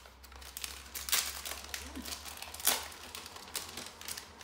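Shiny red gift wrap crinkling and tearing as a present is unwrapped by hand: irregular rustles, with two louder rips about a second in and just past the middle.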